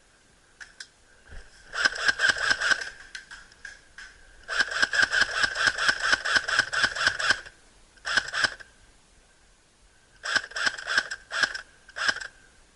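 Airsoft gun firing on full auto in rapid bursts of clicks: a one-second burst, then a longer three-second burst, then several short bursts near the end.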